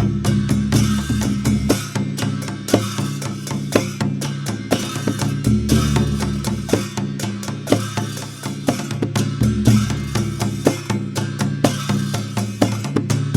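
Newar dhime drum played in a fast, continuous rhythm of sharp strokes over a booming low ring.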